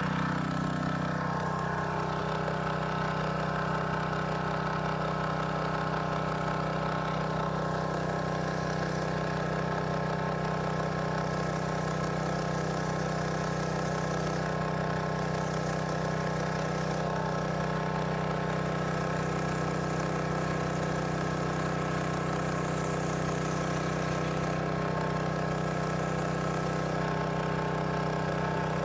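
A small engine running steadily, with an even, unchanging drone.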